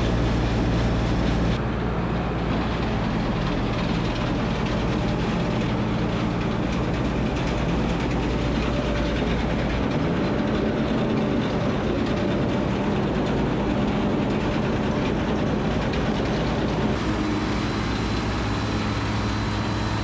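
Two farm tractors' diesel engines running steadily under PTO load, one driving a self-unloading forage wagon's unloading conveyor and the other an ag bagger that packs chopped triticale into a silage bag. The engine drone blends with the steady clatter of the conveyors, and an engine note rises slightly about halfway through.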